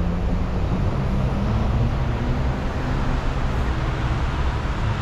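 Steady road traffic noise: passing vehicles and low engine rumble, with no distinct single event.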